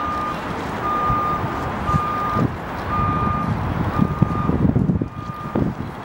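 A vehicle's reversing alarm beeping, one single-pitched beep about every second, over a low engine and street rumble.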